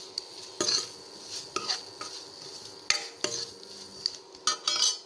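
Steel spoon stirring a dry fry of capsicum, onion and tomato coated in chilli powder in a metal pot, scraping and clinking against the pot in irregular strokes over a light sizzle.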